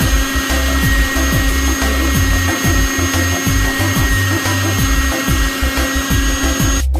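Electric meat grinder motor running steadily as it grinds legumes, with a steady hum and whine; it cuts off abruptly near the end.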